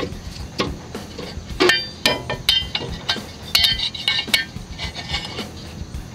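Metal parts clinking and clanking as steel shims and bolts are worked into place at a truck's driveshaft carrier bearing bracket: a series of sharp, ringing metallic knocks in irregular clusters.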